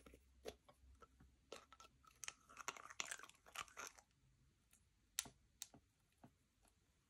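Slime being worked and mixed with makeup, giving faint sticky crackles and clicks. They are densest about three seconds in, followed by a few separate pops.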